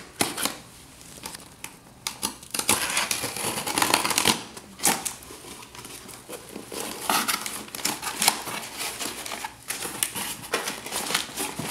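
Cardboard shipping box being opened by hand: irregular rustling, crinkling and scraping of cardboard and packing material, with scattered sharp clicks.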